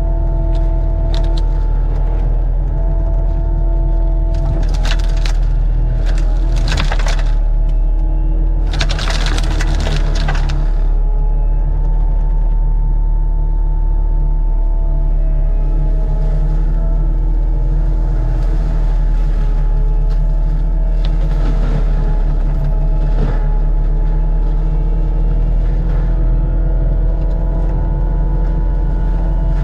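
Forestry mulcher's diesel engine running steadily under load while its Denis Cimaf mulching head grinds brush and wood. Several louder crackling bursts rise over the engine, the heaviest about nine seconds in.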